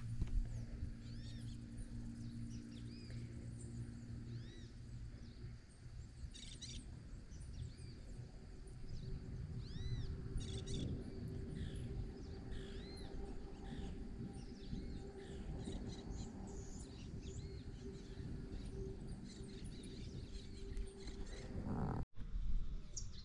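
Birds calling at dawn: many short arched chirps and a few rapid trills, over a low steady hum.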